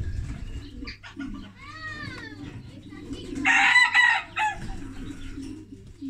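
A rooster crowing once, loud and harsh, a little past halfway, with shorter rising-and-falling calls about two seconds in.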